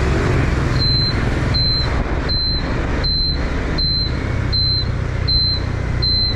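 Motor scooter's turn-indicator buzzer beeping, a short high beep about every three-quarters of a second starting about a second in, with the indicator on for a right turn. Underneath runs the steady low noise of the scooter's engine and the road.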